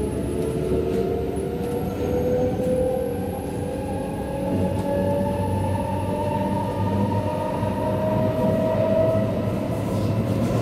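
Cabin sound of a moving SMRT C751B metro train: the traction motors whine with a pitch that rises steadily as the train gathers speed, over a steady rumble of wheels on the track.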